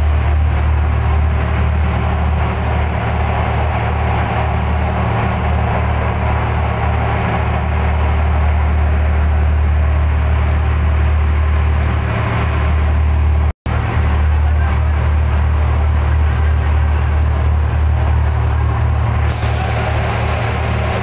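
Fishing trawler's engine running with a steady, loud low drone. It cuts out for an instant about two-thirds of the way through, and a higher hiss joins near the end.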